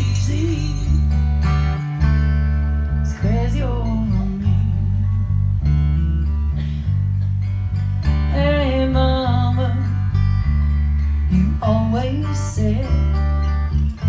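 Country song played by a band: strummed acoustic guitar and bass notes changing about once a second, with a wavering melodic lead line over them, in a stretch without lyrics.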